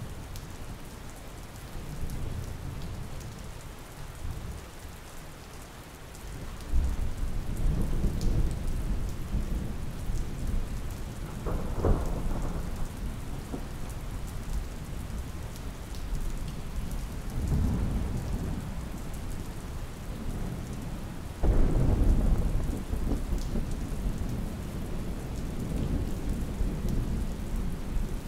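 Thunderstorm: steady rain with repeated rolls of thunder. A rumble swells about a quarter of the way in, a sharp crack comes near the middle, and the loudest roll starts suddenly about three-quarters through.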